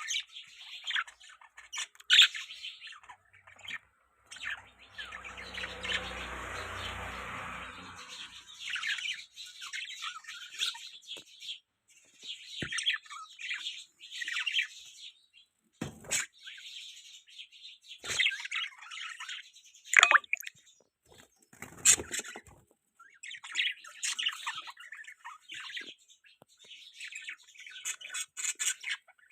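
Pet budgerigars chirping and chattering in quick, high, twittering calls, with a few seconds of steady rustling noise about five seconds in.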